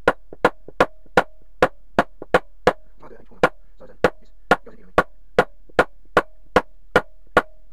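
Rubber mallet striking the heated sprocket carrier of a Suzuki GS500 rear wheel to knock the bearing in, about eighteen even blows, two or three a second with a short pause about three seconds in. Each blow is sharp and leaves a brief metallic ring from the steel sprocket.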